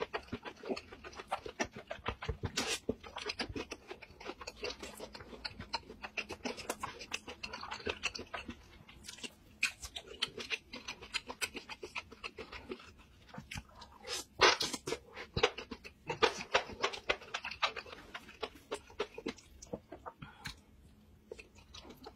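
Close-miked wet chewing, lip-smacking and slurping of spicy seafood in sauce, a dense run of mouth clicks with short pauses between bites, loudest about fourteen to sixteen seconds in.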